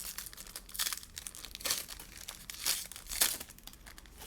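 A trading card pack's wrapper being torn open and crinkled, in four short rips and crackles, the loudest near the end.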